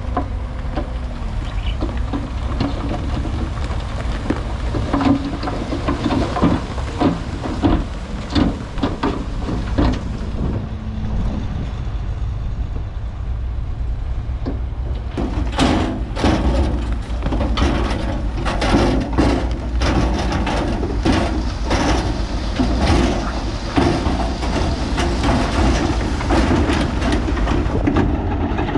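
Heavy diesel earthmoving machinery running steadily under load, with rock clattering and knocking throughout; the clatter grows much denser about halfway through.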